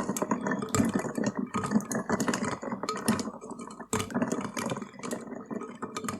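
Ice cubes being stirred in a glass of drink, clinking and rattling against the glass in quick, uneven clicks that go on without a break.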